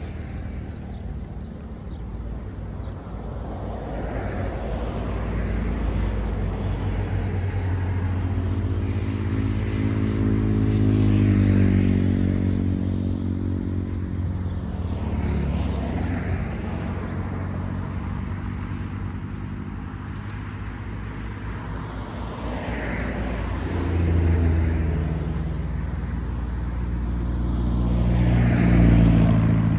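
Road traffic: motor vehicles passing one after another, their engine sound swelling and fading away. The loudest passes come about eleven seconds in, again around twenty-four seconds, and near the end.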